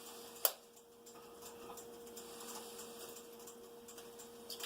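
A utensil clicking against cookware: one sharp click about half a second in, then faint light ticks and scrapes while eggshell bits are picked out of the eggs, over a steady low hum.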